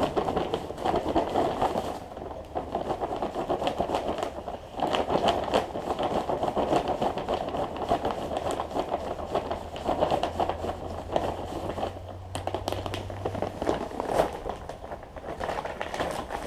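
Sand being tipped and scooped from its bag into a bucket: a gritty crackling and scraping that comes in uneven spurts.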